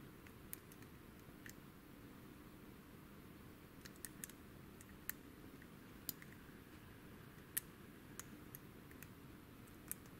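Faint scattered metallic clicks of a lock pick and tension wrench working the pins of a WILKA pin-tumbler cylinder lock with security pins, about a dozen irregular ticks, the sharpest a little past halfway.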